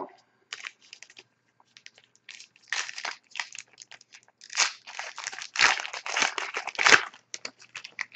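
Panini Titanium hockey card pack wrapper crinkling and tearing as it is opened by hand, in irregular bursts that grow busiest and loudest in the second half.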